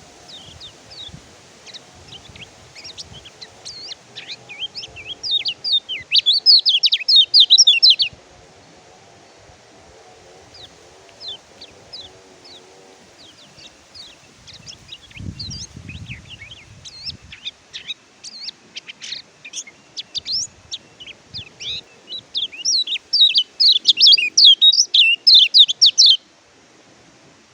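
Kecial kuning white-eye (pleci) singing: scattered high chirps, rising twice into loud rapid twittering phrases of a few seconds each, one early on and one near the end.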